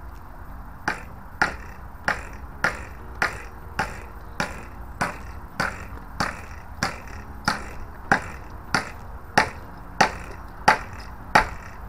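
Electric fence pulsing: a sharp, regular click about every two-thirds of a second, around eighteen in all, starting about a second in and growing a little louder.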